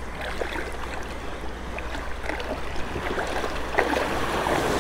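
Shallow surf washing and lapping around a wading angler's legs, with small splashes and trickles, growing a little louder toward the end.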